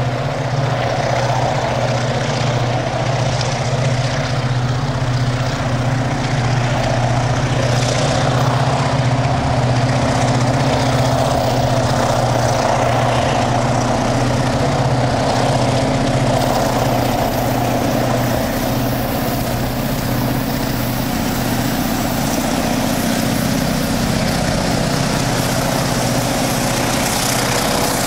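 Diesel-electric freight locomotive engine running under power, a loud, steady low drone that holds evenly throughout.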